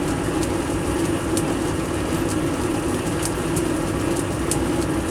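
Metal lathe running steadily while turning a steel spindle, with a chamfering tool on the work: a constant machine hum with faint, irregular high ticks.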